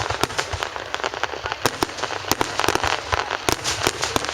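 Fireworks going off: a dense, irregular string of sharp pops and crackles.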